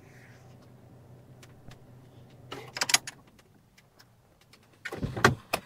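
Sounds inside a parked car as someone gets out: a faint low hum, a cluster of sharp clicks and rattles near the middle, then a loud thump about five seconds in as the car door is unlatched and pushed open.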